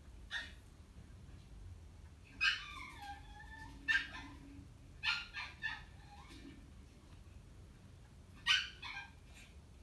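Chihuahua making short, high-pitched yelps and whines in about five bouts, one with a sliding, falling pitch around two and a half seconds in and a quick run of three near the middle.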